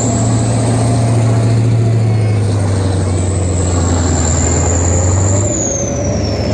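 Tank driving over rough ground, heard from on top of its hull: a loud steady engine drone with a high whine above it. About five and a half seconds in the drone drops away and the whine falls in pitch as the vehicle eases off.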